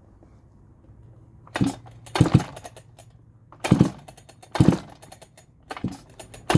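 Farmertec G395xp big-bore chainsaw being pull-started with its decompression valve open: about six sharp rips of the recoil starter rope, roughly a second apart, without the engine firing. The pulls meet stiff compression, a "bite".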